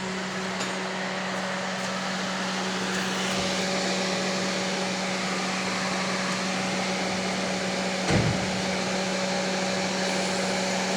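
Car air conditioning running with the engine idling: the blower fan rushes steadily over a low, steady hum, and a second, higher hum joins about three and a half seconds in. One short thump comes about eight seconds in. The system is switched on for charging with R-134a refrigerant.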